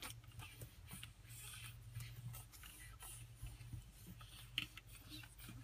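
Faint scratching and pattering of pug puppies' paws and claws scrabbling on fleece bedding as they tussle, with one sharper scratch about four and a half seconds in.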